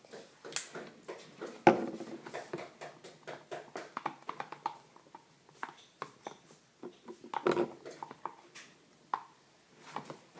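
Slime mixture of glue and paint being stirred and handled in a bowl: a run of small irregular clicks and taps, with a sharper knock about two seconds in.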